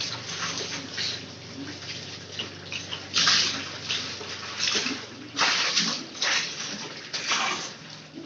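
Water splashing and sloshing in irregular bursts, with a steady low hum underneath.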